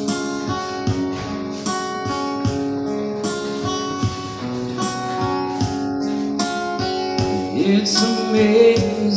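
Live acoustic guitar being strummed in a steady rhythm during a band sound check, with a voice starting to sing about three-quarters of the way through.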